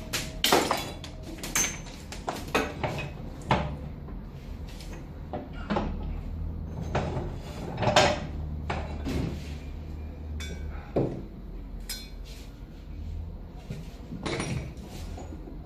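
Irregular metallic clanks and knocks of hand tools and parts being handled and set down while a wheel bearing and hub are worked on, over a low steady hum.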